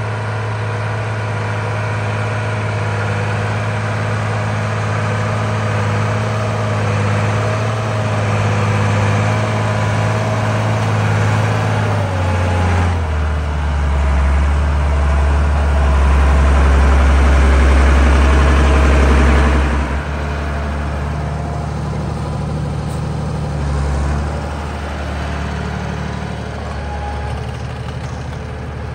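Landini Legend 115 tractor's diesel engine running steadily under load as it pulls a tine cultivator through ploughed soil, growing louder as it comes close. Its pitch drops a step about twelve seconds in, and it is loudest over the next several seconds before a sudden dip about twenty seconds in.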